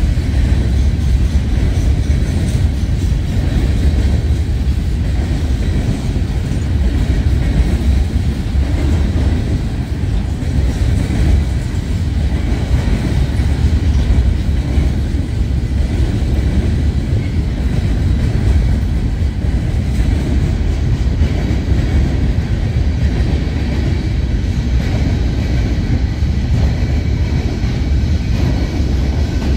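Train on the line making a steady low rumble that holds even throughout.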